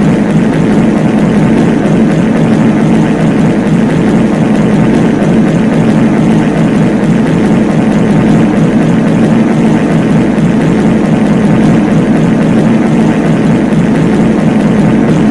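Many overlapping copies of a reverberant fart sound effect, blurred into one loud, steady low rumble in which no single fart stands out.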